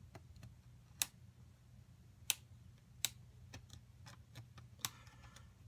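Utility knife cutting small bits off the corner of a leather piece on a cutting mat: a string of sharp clicks and ticks, four of them loud, as the blade chews through the leather.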